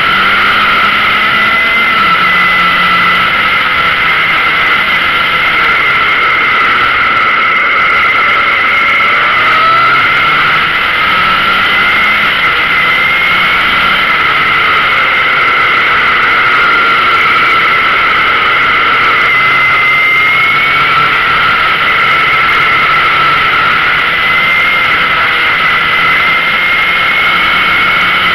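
Motorcycle engine running under way, heard from onboard, its pitch stepping up and down several times with throttle and gear changes. Heavy wind rush and a steady high whistle lie over it.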